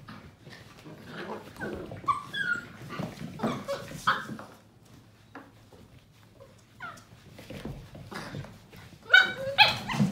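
Seven-week-old Portuguese Water Dog puppies at play: scattered short yips and whimpers over light clicks and scuffles, and a loud high-pitched yelp about nine seconds in, the loudest sound.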